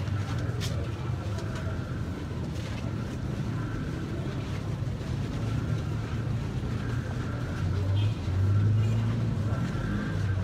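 Low, steady rumble of a van's engine moving at walking pace, briefly louder a little after the middle, with faint crowd noise around it.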